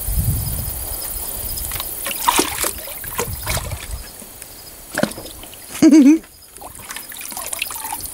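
Water splashing and sloshing in a galvanized stock tank as a dog wades and paws at it, with a run of sharp splashes in the first half. About six seconds in, a short, loud, wavering voice sound stands out above the water.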